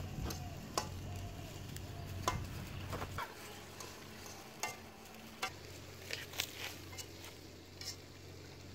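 Dry leaves crackling and rustling as they are crumpled and packed around the lid of a metal cooking pot to seal it, with scattered sharp clicks.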